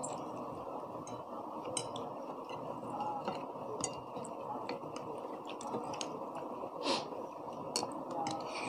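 Metal spoons and forks clinking lightly against ceramic plates as people eat. The scattered, irregular clinks sit over a steady low background noise.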